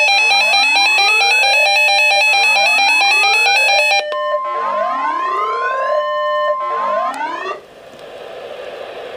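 Emergency alert tones for a flash flood warning. A synthesized siren-like sweep rises about every two seconds: for the first four seconds it plays over a loud, steady electronic beeping tone, then for about three seconds over the steady 1050 Hz NOAA Weather Radio warning tone. The tones stop about seven and a half seconds in, leaving radio static hiss.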